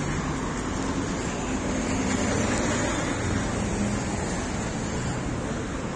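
Steady street traffic noise, with car engines humming.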